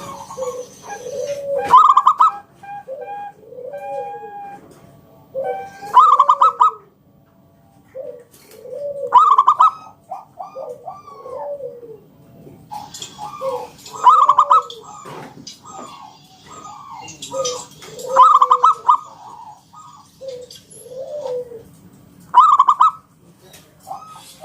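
Zebra dove (local perkutut) cooing in repeated phrases: every four seconds or so a loud rolling burst, followed by a run of shorter arching coos.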